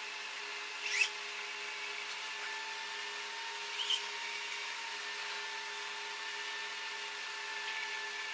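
Steady electric whine and hum of the Draco 3 humanoid robot's motors, several tones held level, with two brief rising whirs, about a second in and near four seconds in.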